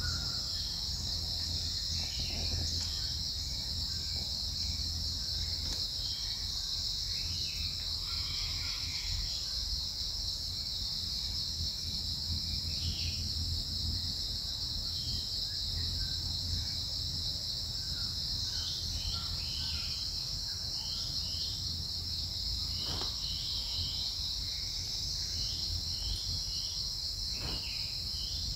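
Steady, high-pitched insect chorus buzzing without a break, with scattered short high chirps over it and a low rumble beneath.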